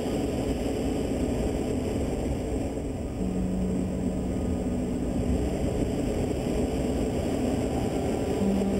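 Steady rush of airflow over a sailplane's canopy in flight, with a low steady hum coming in about three seconds in and again near the end.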